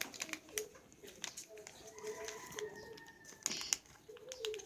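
A bird cooing faintly: short low calls repeated every second or so, over scattered light clicks.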